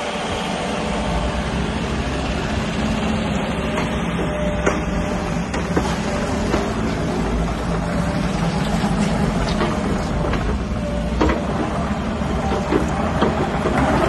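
JCB 90Z-2 excavator's diesel engine running steadily as the machine moves on its rubber tracks, with a few sharp knocks along the way.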